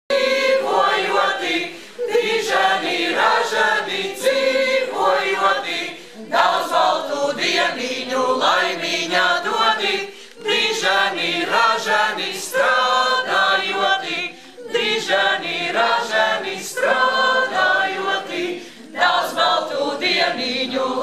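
Mixed choir of men's and women's voices from a folk ensemble singing a birthday greeting song together, in phrases with short breaths about every four seconds.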